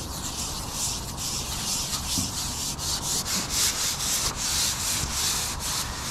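Repeated rubbing strokes of a carbon fishing pole sliding through the hands and over its rests as it is shipped, a rough hiss a few times a second, loudest in the middle.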